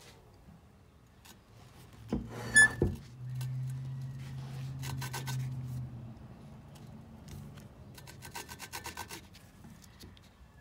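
Hand valve lapping: a suction-cup lapping stick twisted back and forth on an intake valve of a Honda Accord V6 cylinder head, so that the valve face grinds against its seat in lapping compound. The rasping strokes come quickest near the end. A sharp knock or two comes about two and a half seconds in, and a steady low hum runs through the middle.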